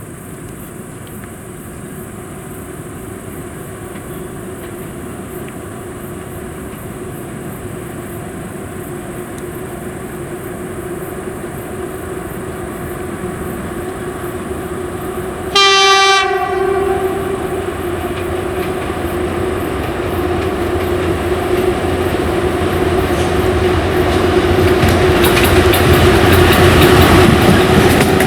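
VL11 electric locomotive hauling a freight train approaching, its running noise and a steady hum growing louder throughout. About halfway through it gives one short, loud horn blast, and near the end the wheels start clattering over the rail joints as it comes past.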